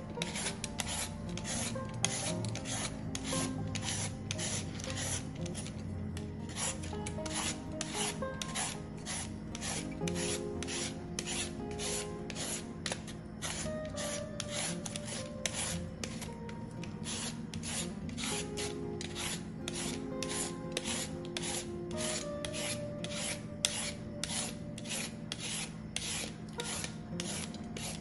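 A julienne peeler's toothed blade scraping down a green mango, shaving it into thin strips, in a steady run of about two strokes a second.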